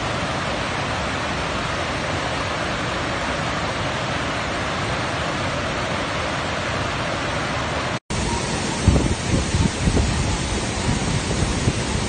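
River rapids rushing steadily over rocks. After a sudden break about eight seconds in, a waterfall falling close by takes over, with uneven low rumbling.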